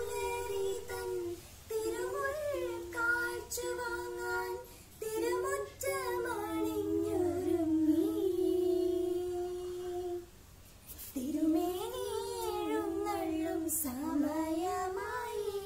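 A child singing a Malayalam Onam song, line by line, with a long held note near the middle and a short breath pause after it.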